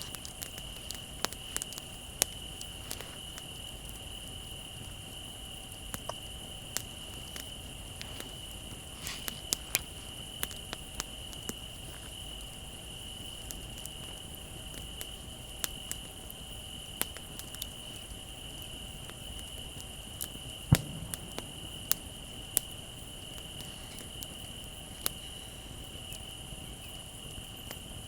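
Campfire crackling, with irregular sharp pops and one louder pop about twenty seconds in. Under it runs the steady high trill of crickets.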